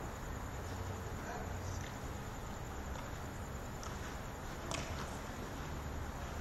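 Steady room noise of a large indoor sports hall with a low hum, and a few faint knocks, the sharpest nearly five seconds in, from a football being kicked on the artificial turf.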